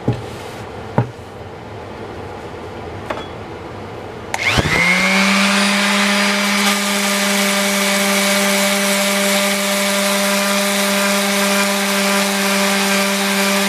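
Dual-action (random orbital) palm sander starting up about four seconds in, spinning up quickly to a steady hum. It then runs steadily while sanding a laminated wooden axe handle to take out scratch marks. Before it starts there are a few light knocks.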